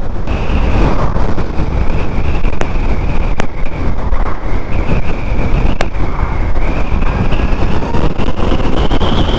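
Zero SR/S electric motorcycle under way at road speed: heavy wind and road rush with a thin, high whine from the electric drive that wavers in pitch and climbs near the end.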